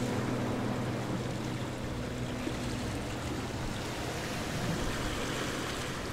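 A steady rushing noise, like surf or running water, with sustained background-music chords fading out over the first three seconds.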